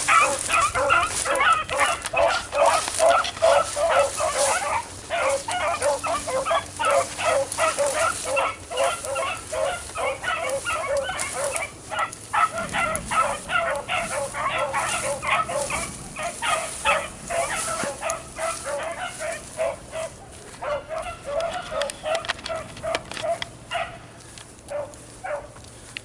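Beagles baying on a rabbit chase: a dense string of quick, pitched yelps and bays that thins out and fades over the last few seconds.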